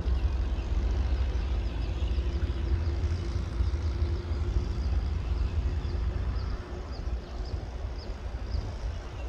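Low, steady rumble with a faint hum of a diesel-hauled passenger train approaching from far down the line. Short high bird chirps repeat, coming more often near the end.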